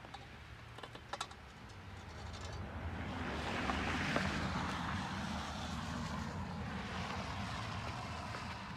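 A vehicle passing on the street, its engine hum and tyre noise swelling to a peak about four seconds in and then easing off slowly. A few light clicks from handling come before it.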